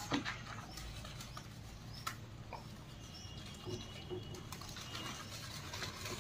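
Faint soft wet sounds of hands working shampoo lather into a small dog's long coat, with a couple of light clicks. Birds chirp faintly in the background, with thin high whistles around the middle.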